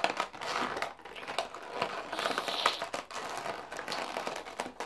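A clear plastic toy pouch crinkling and crackling in a rapid, irregular run of small clicks as hands twist and pull at it, trying to get it open against sticky tape.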